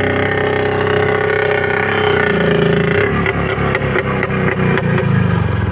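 IZh motorcycle's two-stroke engine running close by, holding a steady note for about three seconds. The note then changes and turns choppier toward the end.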